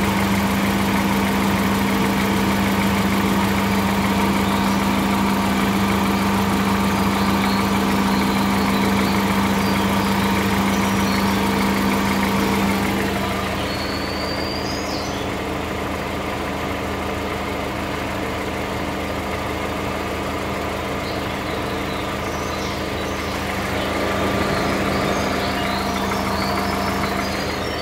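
2013 VW Voyage's EA111 four-cylinder engine idling steadily with a strong steady hum, which drops in level about halfway through and picks up slightly near the end. This is the strange noise the owner hears from the lower part of the engine.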